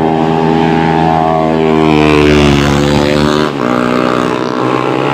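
Motorcycle engine running loud at steady high revs, its pitch dropping about three and a half seconds in.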